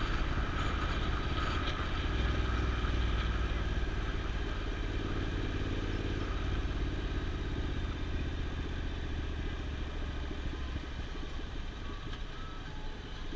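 Vehicle driving along a highway: a steady low mix of engine, tyre and wind noise, easing a little near the end.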